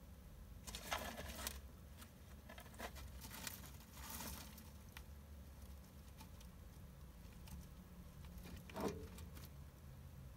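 A hamster rustling and scrabbling through loose shredded cage bedding in a few short bursts, the loudest about a second in and near the end, over a faint low hum.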